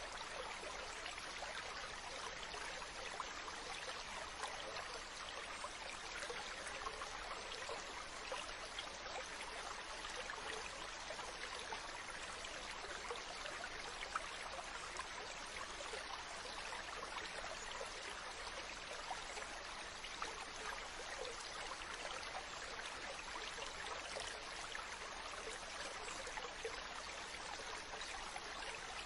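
Steady running water, an even babbling and trickling like a small stream, with tiny splashes flickering through it and no change in level.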